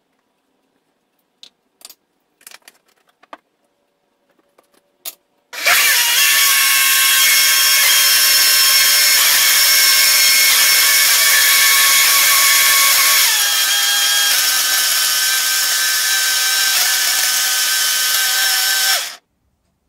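A few light clicks and knocks, then a 350-watt single-serve blender starts up and runs loud and steady, crushing ice cubes into a blueberry smoothie to thicken it to a slushy. Its tone drops a little and it gets slightly quieter about two-thirds of the way through, and it cuts off abruptly shortly before the end.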